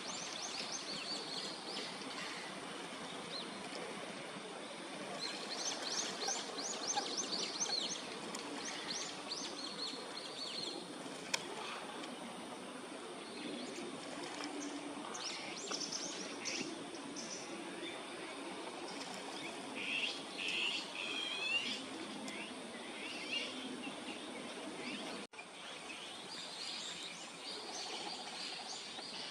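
Outdoor ambience with small birds chirping: scattered clusters of quick, high notes over a steady background hiss.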